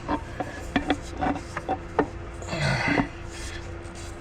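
Scattered light knocks and clicks, with a brief scraping rub about two and a half seconds in, as a new CV axle shaft is worked up into place.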